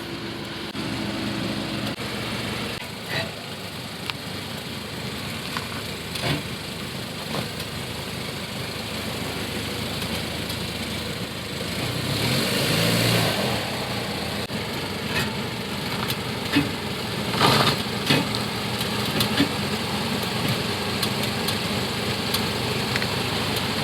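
A car engine idling steadily, with a few sharp clicks and knocks scattered through it and a brief swell in level about halfway.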